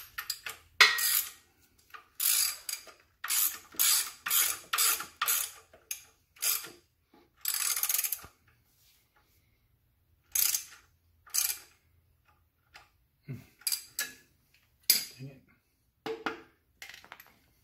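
Socket ratchet clicking in repeated short strokes as it turns the threaded rod of a bearing-press tool, drawing a brass spigot bearing into the crankshaft. The strokes stop for about two seconds midway, then start again.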